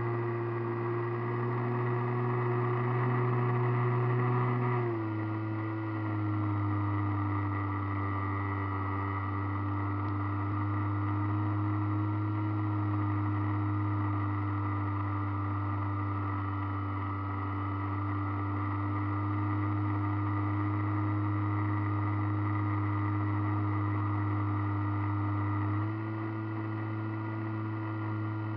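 Radio-controlled model airplane's motor and propeller running steadily, heard from an onboard camera. The pitch drops about five seconds in as the throttle is eased back, then rises again near the end.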